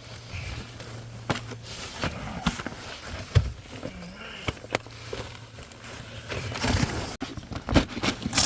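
Rustling and scattered sharp knocks of a person crawling through a crawlspace over loose insulation on the ground, with a low steady hum that comes and goes.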